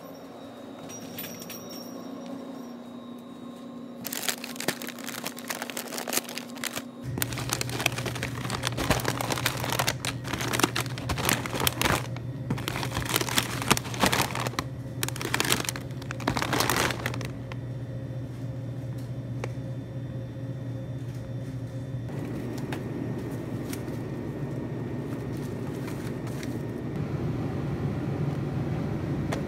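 Plastic snack bags crinkling and rustling in quick clusters for about the first half. Under it, and on alone afterwards, runs the steady low hum of refrigerated display cases.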